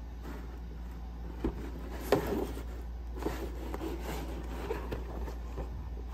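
Cardboard box of a diecast model car handled and turned over on a table: hands rubbing and sliding on the cardboard, with a couple of light knocks, the loudest about two seconds in, and small clicks after.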